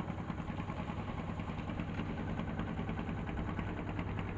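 An engine idling steadily with a fast, even chugging beat, about ten beats a second.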